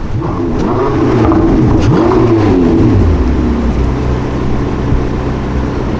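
Supercar engine revving: the pitch rises and falls a couple of times over the first three seconds, then settles into steady low running.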